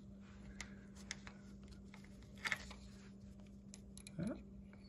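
Faint clicks and taps of small metal parts being handled: a shifter linkage rod with heim-joint ends being fitted by hand, the clearest click about halfway through and a brief scrape a little after four seconds, over a steady low hum.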